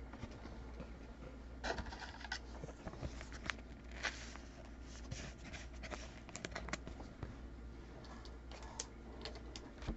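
Faint handling of trading cards: scattered light clicks and scrapes as cards slide against one another and are set down.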